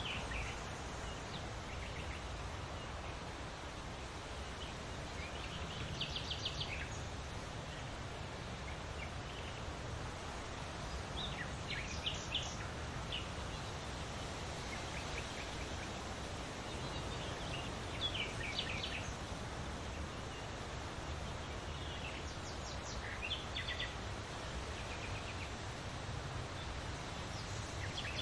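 Songbirds singing in short bursts of rapid chirping notes about every five or six seconds, over a steady rustle of leaves in the wind.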